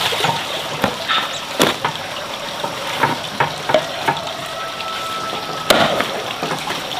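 Water splashing and trickling steadily, with scattered small knocks and clatters; the sharpest come about a second in, at one and a half seconds, and near six seconds.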